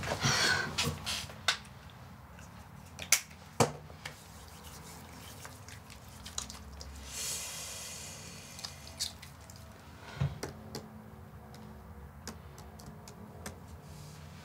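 Quiet room sounds: a few sharp knocks in the first few seconds, a brief soft rubbing of hands about seven seconds in, then scattered light clicks of laptop keys being typed.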